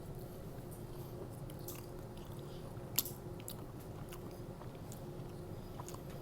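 Close-up chewing of a mouthful of cheesy pizza fries, with scattered wet mouth clicks and one sharper click about three seconds in, over a faint steady hum.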